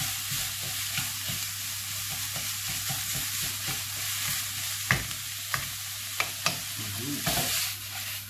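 Minced beef and onion frying in a pan, with a steady sizzle as a wooden spatula stirs and breaks up the mince. A few sharp knocks of the spatula on the pan come in the second half. The sizzle drops near the end as the pan is lifted off the flame and tossed.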